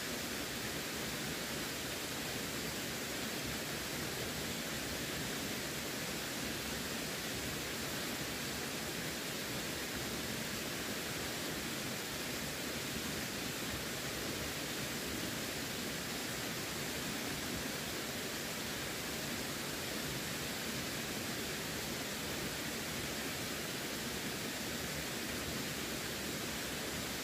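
Running water making a steady, even rush with no splashes or changes.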